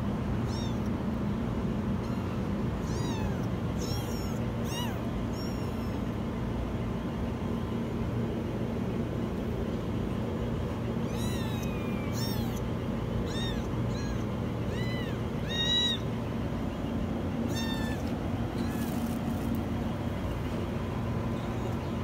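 Kittens meowing in short, very high-pitched calls that rise and fall, coming in several runs, over a steady low background hum.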